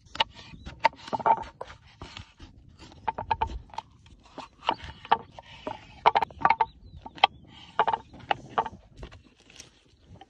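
Knife slicing vegetables on a wooden cutting board: a run of sharp, irregular chops, each blade stroke knocking on the board.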